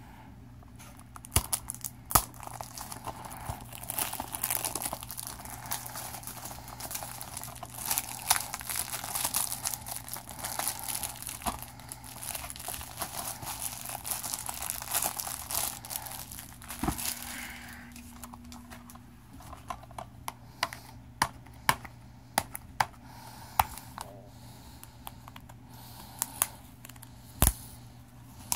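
Plastic shrink-wrap on a DVD case crinkling and tearing as it is stripped off, a dense crackle for roughly the first two-thirds, then thinner, scattered crackles and clicks.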